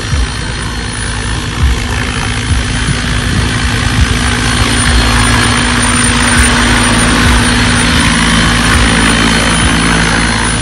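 Electric scale RC helicopter, a Lama body on Align T-Rex 700 mechanics, hovering low: rotor blades whooshing and chopping over the steady whine of its onboard simulated turbine sound. It grows louder from about four seconds in as it comes in close.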